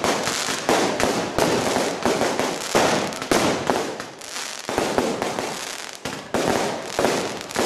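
Fireworks display: a rapid string of bangs from bursting aerial shells and rockets, about two a second, each followed by a short fading crackle.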